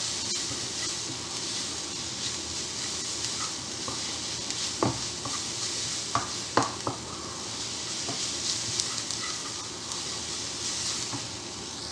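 Diced onions frying in oil with a steady sizzle, while a wooden spatula stirs and scrapes them around the frying pan; a few sharper scrapes come around the middle.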